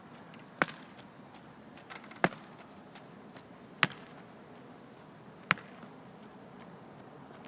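Footfalls of an athlete on the track during hurdle drills: four sharp, evenly spaced strikes about a second and a half apart, with fainter ticks between them.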